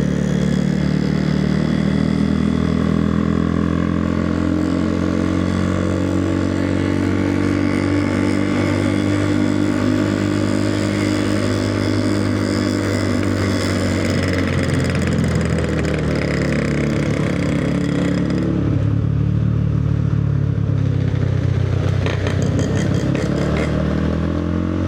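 Motorcycle engine running while riding, its pitch dipping and rising with the throttle, over a rushing hiss that drops away about two-thirds of the way through.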